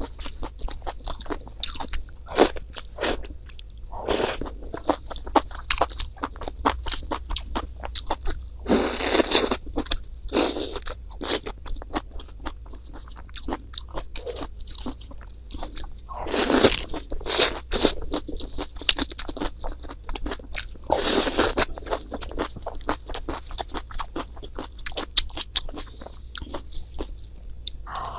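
Close-miked eating: a person chewing and biting into rice and Chinese noodles, with a steady stream of quick clicks and crunches. Three longer noisy stretches come about nine, sixteen and twenty-one seconds in.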